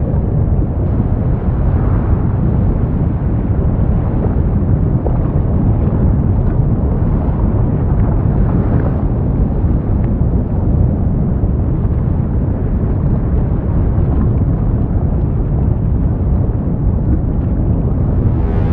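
Erupting volcano rumbling: a loud, steady, deep noise with no tune, heaviest in the low bass.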